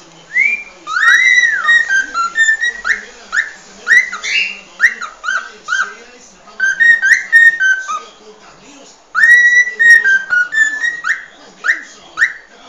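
Cockatiel singing its natural whistled song: a quick run of short rising and falling whistles, broken by a short pause about eight seconds in before a second phrase.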